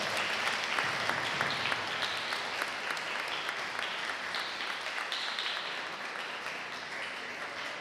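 Congregation applauding: many hands clapping together, slowly dying down toward the end.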